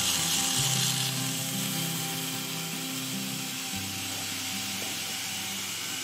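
Background music: held chords over a bass line that changes note twice.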